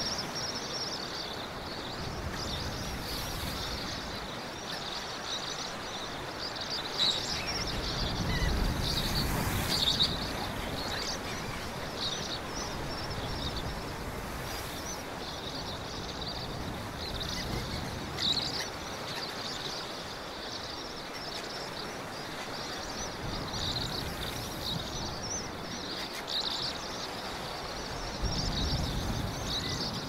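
Gentle sea waves washing with a steady hiss, surging a third of the way in and again near the end, under continuous high chirping of small birds.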